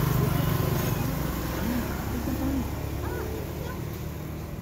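A steady low engine hum, easing off slightly over a few seconds, with a few faint short chirps over it.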